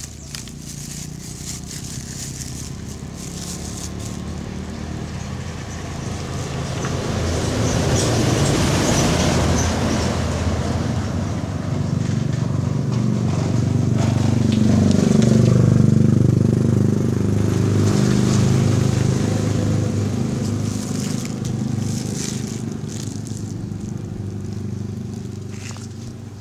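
Engine and road noise of a moving motor vehicle, heard from on board. It grows louder through the middle as the vehicle speeds up, then eases off toward the end.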